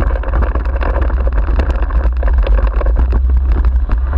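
Wind buffeting the handlebar-mounted microphone as a dog-drawn rig travels at speed, heard as a heavy low rumble. Over it are the noise of the rig's tyres on a rough dirt track and frequent rattling clicks from the rig.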